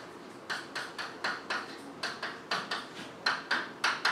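Chalk writing on a blackboard: a quick run of short taps and scratches, about three a second, sparser in the first half second.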